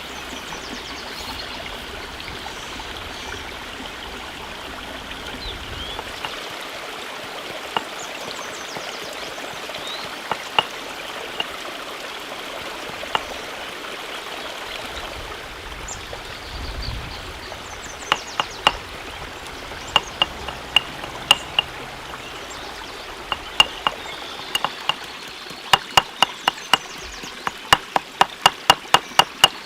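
A steady rushing like running water, with sharp knocks that come now and then and then speed up to about three a second near the end.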